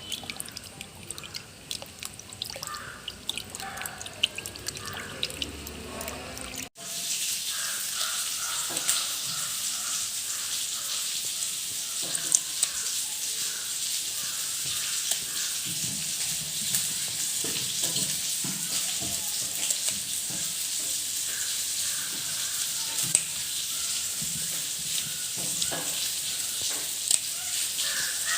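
Water from a tap trickling and dripping into a sink, then, after an abrupt cut about seven seconds in, running steadily and louder.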